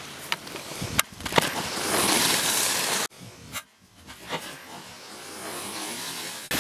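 Skis sliding and scraping on packed snow, with a few sharp clacks in the first second and a half; the hiss cuts off abruptly about three seconds in and comes back softer.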